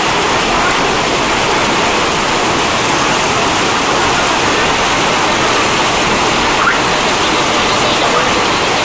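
Heavy hailstorm: hailstones falling on corrugated tin roofs and the ground in a dense, steady din.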